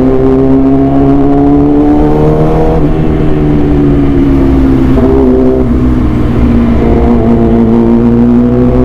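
Yamaha R6 inline-four engine through an SC-Project aftermarket exhaust, running at held revs: the pitch climbs slowly, drops about three seconds in, eases lower, then starts to rise again near the end.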